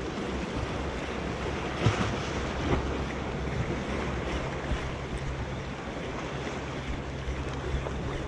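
Wind buffeting the microphone over the wash of surf, with a spinning reel being cranked steadily and a few sharp clicks, the loudest about two seconds in.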